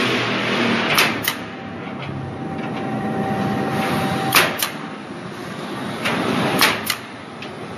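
Air-powered Kodi Klip rebar-clipping tool firing three times, each a sharp double snap, as it fastens clips onto rebar intersections. A steady rushing background noise runs beneath the snaps.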